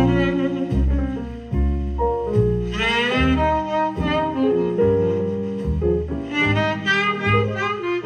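Jazz recording with a saxophone line over a double bass, played back through JBL C40 loudspeakers driven by a Scott Type 272 integrated amplifier.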